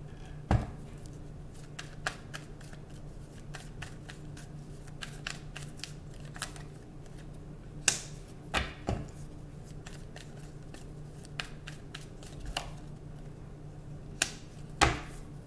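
A tarot deck being shuffled by hand: soft riffles and taps of cards, broken by a few sharper card slaps, one about half a second in, a cluster around the middle, and one just before the end.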